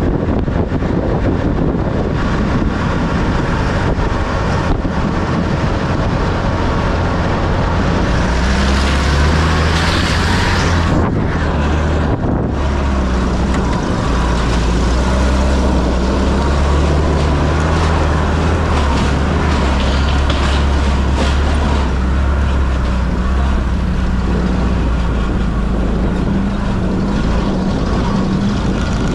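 UAZ off-road vehicle's engine running under load while driving and towing a broken tracked ATV on a strap. The engine note rises and falls with the throttle, and there is a short burst of hiss about nine seconds in.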